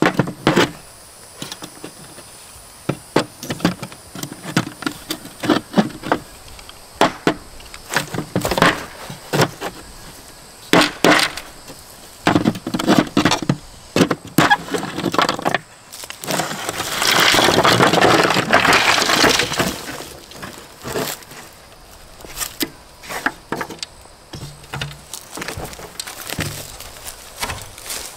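Hammer knocking and chipping cured mortar out of the grid on the underside of a plastic shower base: a run of irregular sharp knocks and cracks, with a few seconds of denser scraping and crumbling a little past the middle.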